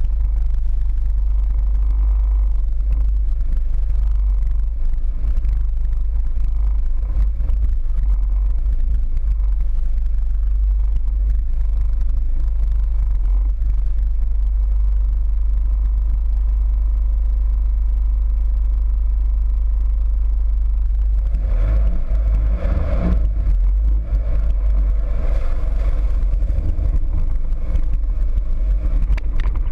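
4WD vehicle driving a rough dirt track, a steady low rumble of engine and tyres heard from a camera mounted on the vehicle. For several seconds past the middle it gets louder and rougher as it drives through a shallow creek crossing.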